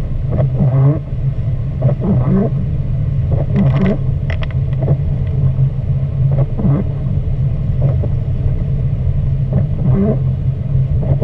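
Steady low rumble of a car's engine and tyres on a wet road, heard from inside the cabin, with the windshield wipers sweeping across the wet glass and squeaking several times.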